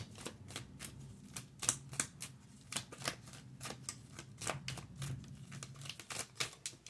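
A deck of tarot cards being shuffled by hand: quick, irregular clicks and flicks of card edges, several a second.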